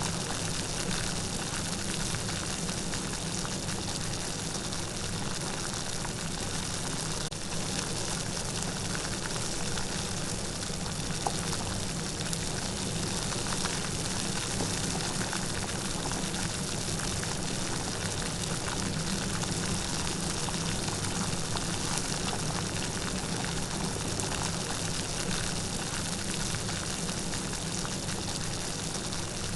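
Steady light rain falling in a garden: a continuous even hiss of many fine drops, with no thunder.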